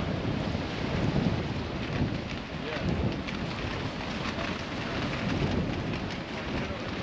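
Wind gusting on the microphone as an uneven low rumble, over sea waves washing against a rocky shore.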